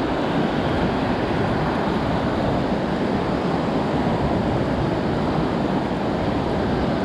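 Steady, even wash of shallow ocean surf.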